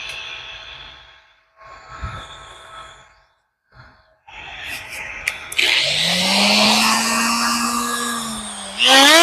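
Die grinder with a carving burr spinning up and cutting into spruce wood, running steadily from about five seconds in. Just before the end its pitch and loudness jump sharply.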